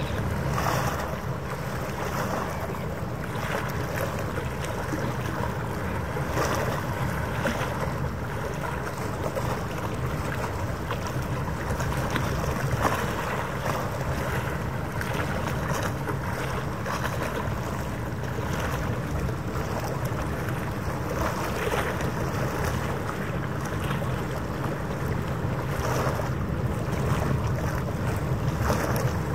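Wind on the microphone and water lapping, with a steady low boat-engine hum underneath.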